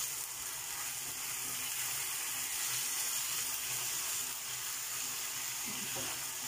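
Minced beef and onions sizzling steadily in a hot frying pan as they are stirred with a silicone spatula.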